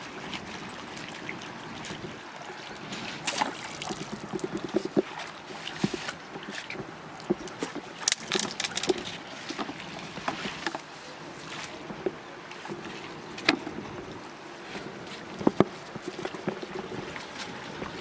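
River water lapping and trickling at the bank, with scattered sharp clicks and taps throughout.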